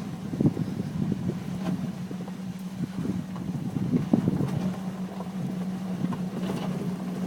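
Chevrolet Silverado pickup's engine running steadily at low speed as the truck crawls over rocks, with irregular knocks and crunches from the tyres on rock.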